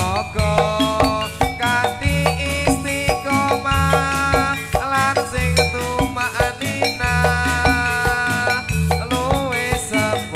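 Jathilan dance accompaniment music: a Javanese gamelan-style ensemble with a melody of struck metallophone notes over drums and a steady, repeating low pulse.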